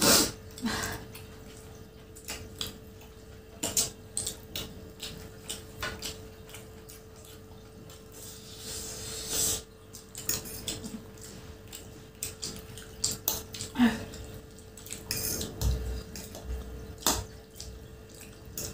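Mukbang eating sounds: metal forks clicking and scraping on plastic plates as chowmein noodles are twirled and lifted, with chewing and small mouth noises in between. A faint steady hum sits underneath.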